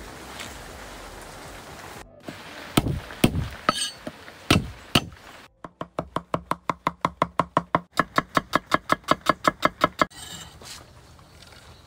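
Cleaver chopping garlic on a wooden chopping board. A few single knocks come about three seconds in, then a fast, even run of about seven or eight chops a second for about four seconds.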